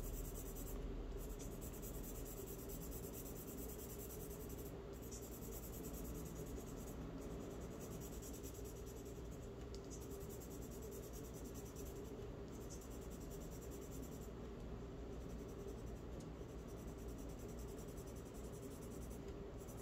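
Charcoal scratching across drawing paper in faint, steady shading strokes, broken by a few short pauses, over a low steady room hum.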